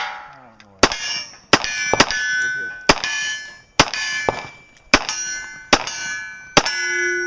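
A pistol fired at steel plate targets: about nine sharp shots, roughly one every three-quarters of a second, each followed by the ringing clang of a struck steel plate.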